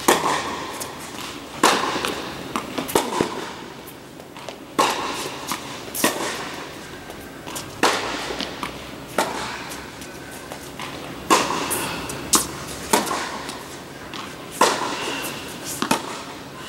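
Tennis rally on an indoor hard court: racquets striking the ball and the ball bouncing, sharp pops about every one to two seconds, about a dozen in all, each ringing in the large hall.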